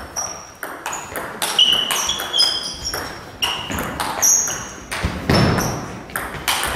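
Table tennis doubles rally: the ball clicking sharply off the rackets and the table about two to three times a second, many hits with a short high ping.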